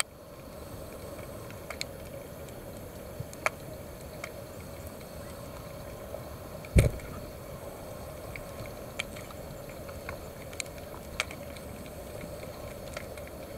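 Underwater ambience heard through a camera's waterproof housing: a steady hum with scattered sharp clicks, and one loud low thump about seven seconds in.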